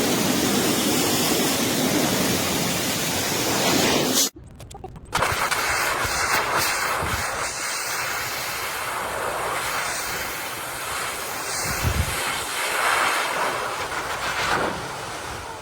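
High-velocity pet hair dryer blowing, a loud steady rush of air. It cuts off abruptly for under a second about four seconds in, then the airflow resumes, sounding thinner, with less low rumble.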